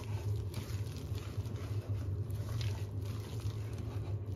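A hand kneading soft, sticky donut dough in a stainless steel bowl: faint squelching and light knocks against the bowl, over a steady low hum.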